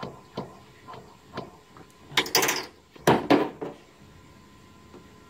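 Several light metallic clicks as a steel pick works a valve spool in its bore in an aluminium JF015E CVT valve body, a valve that is sticking. Then two louder scraping clatters about two and three seconds in as the valve body is handled and lifted off the bench.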